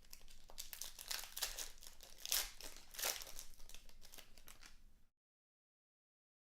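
Sports trading cards and their packaging being handled, a crinkling, rustling sound with a few sharper crackles that stops about five seconds in.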